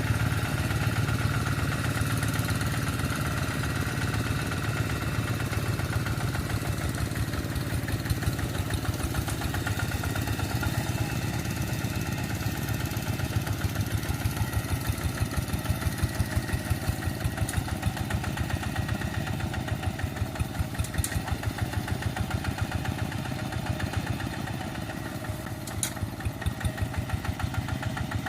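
Kubota RD85DI single-cylinder diesel engine of a Quick TL800 two-wheel hand tractor running steadily with an even beat of firing strokes. It is briefly softer near the end.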